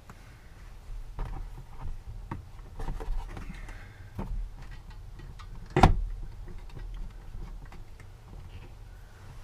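Scattered light clicks and knocks of a vehicle skylight being handled and fitted back into place, with one sharper knock about six seconds in, over a low hum.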